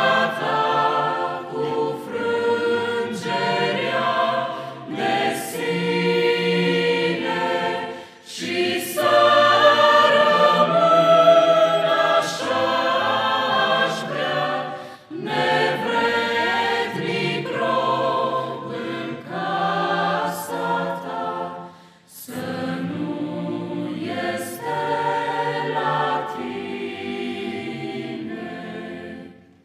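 Mixed choir of young men and women singing a Romanian hymn in parts, unaccompanied, in long phrases with brief pauses for breath; the singing stops at the end.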